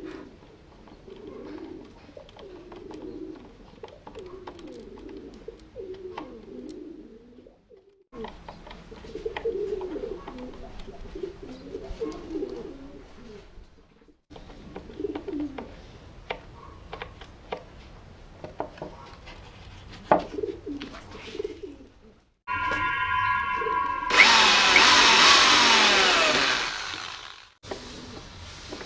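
Screws being driven by hand into a pine board, with small clicks and creaks, against pigeons cooing in the background. Near the end a corded electric drill runs for about five seconds and is the loudest sound, its pitch falling in its last few seconds.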